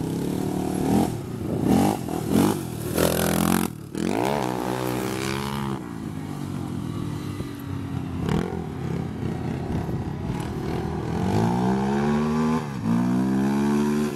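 Off-road quad and side-by-side engines revving, their pitch rising and falling in swells as they run up and down a sand dune. There are bursts of rough noise in the first few seconds.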